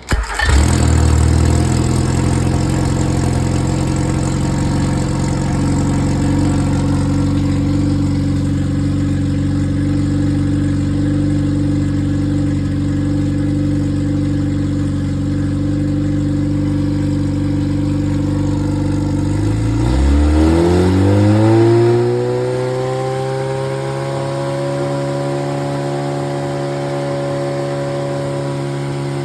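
Freshly rebuilt Triumph Spitfire 1500 inline four-cylinder engine starting right up on a test run and idling steadily. About 20 seconds in it smoothly speeds up over a couple of seconds and holds a higher, steady speed.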